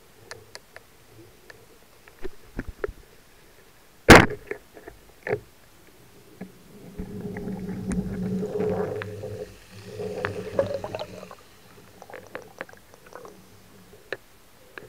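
Underwater sound on a spearfishing dive: scattered clicks and knocks, one loud sharp crack about four seconds in, and a few seconds of low rumbling with a steady hum in the second half.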